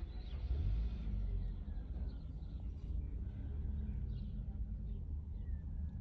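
Small birds giving short, high chirps every second or so over a steady low traffic rumble, with a vehicle passing louder in the first two seconds.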